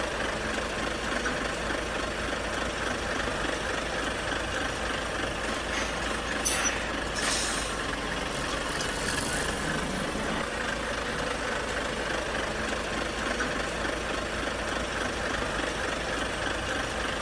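A heavy vehicle's engine running steadily, with a few short hisses of air about six to nine seconds in.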